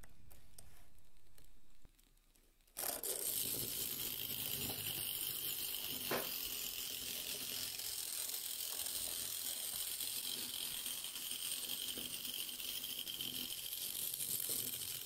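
Small 009-gauge live steam locomotive running with its log-wagon train on a tabletop track: a steady hiss with light rattling of wheels and wagons over the rails.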